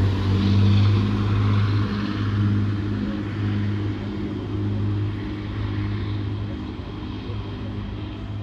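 Renfe Class 592 diesel multiple unit moving away, its diesel engines running with a low steady hum that slowly fades as the train recedes.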